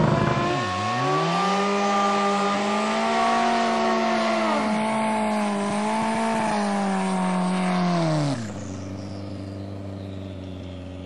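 Drag-racing motorcycle engine revved hard and held at high revs through a burnout, with two brief dips, then dropping sharply back to a steady idle about eight seconds in.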